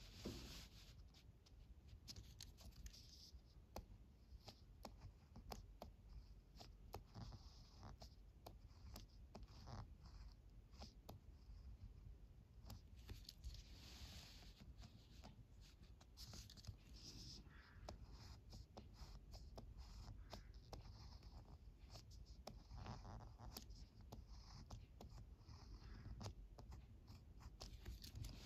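Ballpoint pen writing kanji on paper: faint scratching strokes with many small ticks.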